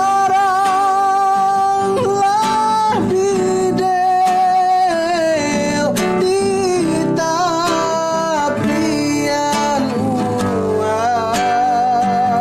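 A Kerinci regional song sung by a solo voice over a strummed acoustic guitar. The singer holds long notes with wavering, ornamented turns.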